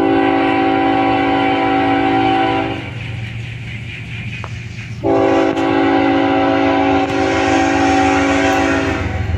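Diesel locomotive air horn sounding two long blasts, each a chord of several tones held steady, with a short gap between them. A low rumble runs underneath.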